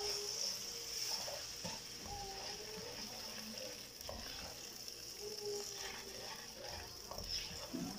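Slotted plastic spatula stirring sugar into hot milk in a non-stick frying pan, with soft scrapes against the pan over a faint, steady sizzle.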